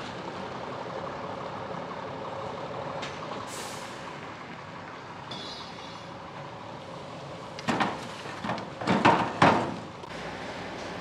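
Heavy truck's diesel engine running steadily at low speed as it manoeuvres a long trailer. A short hiss comes about three and a half seconds in, then a run of loud air-brake hisses between about eight and nine and a half seconds.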